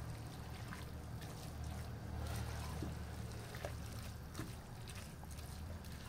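A silicone spatula stirring a moist, creamy shredded-chicken filling in a pan, giving a soft wet squishing with a few light scrapes, over a steady low hum.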